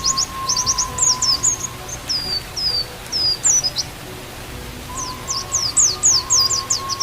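Pleci (white-eye) song: rapid runs of high, down-slurred chirps. The notes slow and lengthen after about two seconds, pause briefly, then pick up fast again near the end. Under it a bamboo flute (seruling) holds a steady note, which drops out after about two seconds and comes back near the end.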